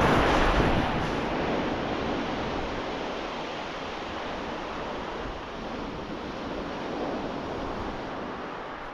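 Sea waves breaking and washing on a shingle beach: a surge at the start eases off to a steady wash, with a slight swell again near the end, and some wind on the microphone.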